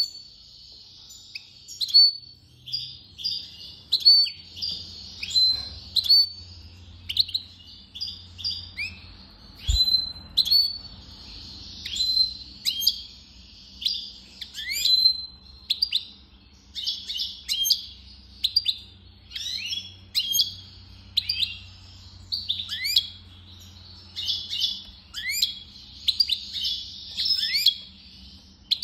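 European goldfinch singing: a long run of quick twittering chirps and sweeping notes in phrases broken by short pauses, with denser buzzy passages in places.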